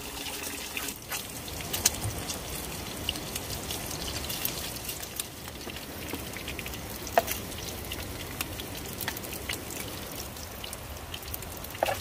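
Steady rush of running water, with a few sharp light clicks scattered through it.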